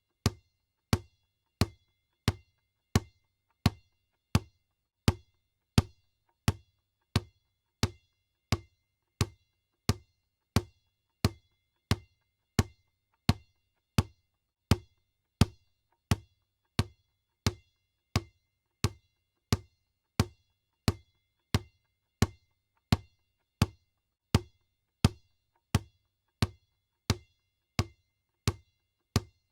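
Basketball bouncing on a hard floor in a steady, even rhythm, about three bounces every two seconds. Each bounce is a sharp thud with a short ring.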